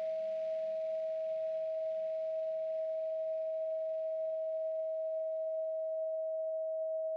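A steady pure sine tone at 639 Hz, held without a break. A faint hiss underneath it fades away about six seconds in.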